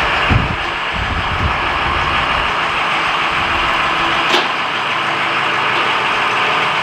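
Engine-driven machinery running steadily with a loud, even noise, and a short sharp click about four seconds in.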